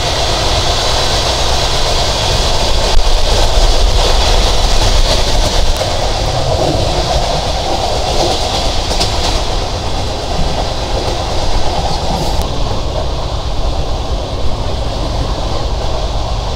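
Sundarban Express train running at speed, heard from on board: a steady rumble and rattle of the carriage and wheels on the track, louder for a few seconds around the middle.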